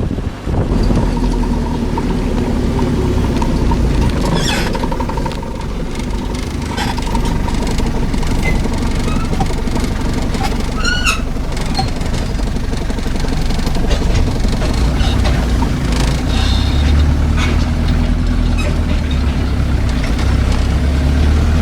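A vehicle engine running steadily, with a brief squeal about four and a half seconds in and a rising squeal about eleven seconds in.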